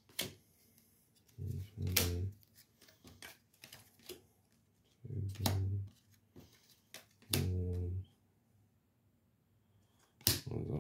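Trading cards being sorted by hand: several sharp, separate taps and clacks as cards are set down and squared into stacks, with quiet gaps between them.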